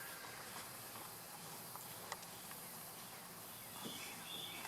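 Faint outdoor ambience: a low steady hiss with a single sharp tick about two seconds in and faint high chirps near the end.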